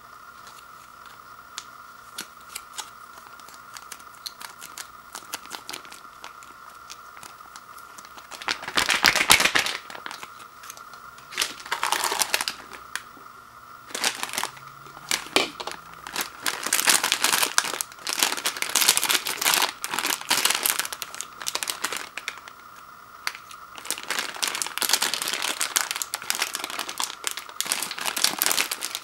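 Thin plastic food packaging crinkling and rustling as it is handled and pulled open by hand, in irregular bursts starting about eight seconds in, over a faint steady high hum.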